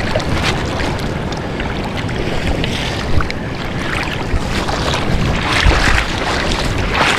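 Wind rumbling on the microphone over the wash of shallow surf, with scattered small splashes of water.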